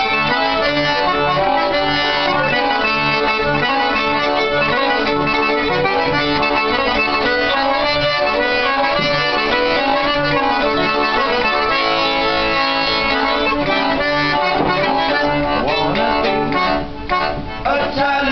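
Instrumental break of a live song: a tune played on sustained reedy notes over a regular pulsing bass beat.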